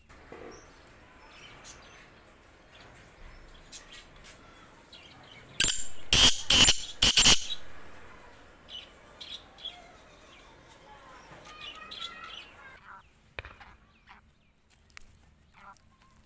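Black francolin calling: a short phrase of about four loud, harsh notes, six to seven and a half seconds in, with faint short chirps before and after.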